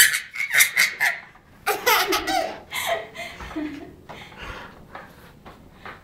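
Baby laughing in hearty bursts, loudest in the first half and tailing off after about three and a half seconds.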